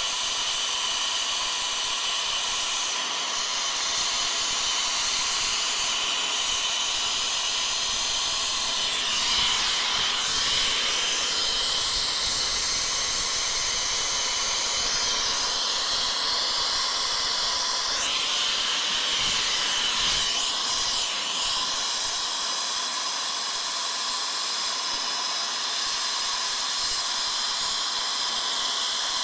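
Air-acetylene brazing torch burning with a steady hiss as it heats copper refrigerant line joints. The hiss shifts in tone briefly twice, about a third and two-thirds of the way through.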